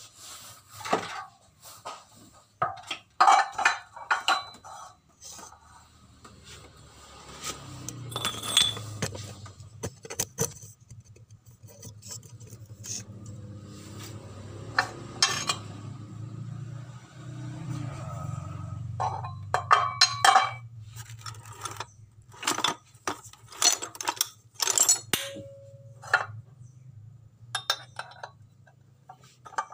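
Irregular metallic clinks and knocks of steel engine parts being handled and set up on a hydraulic press: a Honda Beat crankshaft with its bearings and connecting rod, resting on a sprocket. A low steady hum runs underneath through the middle stretch.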